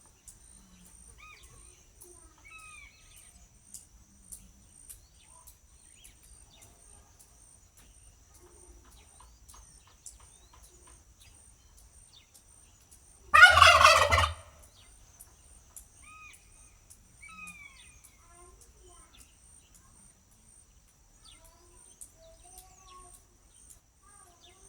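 A turkey gobbles once, about halfway through: a loud, rapid warbling call about a second long. Around it are faint scattered bird chirps over a steady high insect drone with a regular pulse.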